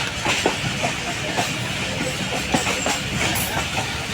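Passenger train running on the rails: a steady rumble with irregular clicks and knocks of wheels crossing rail joints.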